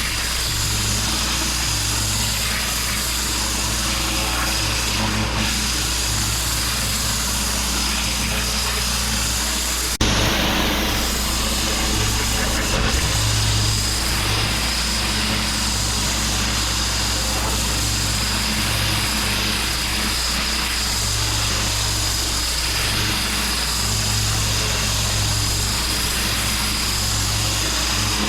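Pressure washer running, its motor humming steadily under the hiss of the water jet blasting block paving, with a thin steady whine over it. The sound changes abruptly about ten seconds in.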